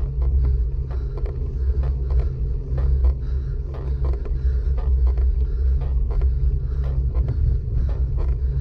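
Riding noise from a road bike on the move: a steady low rumble of tyre and wind noise on the microphone, with frequent small knocks and rattles.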